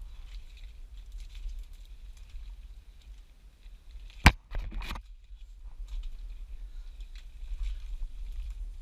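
Faint crackling and rustling of thin mangrove stems and roots being grabbed and pushed aside by hand, over a steady low rumble, with one sharp knock a little over four seconds in.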